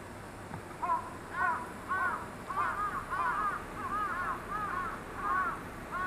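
Crows cawing: a string of short, harsh caws starting about a second in, repeating about twice a second and overlapping in the middle.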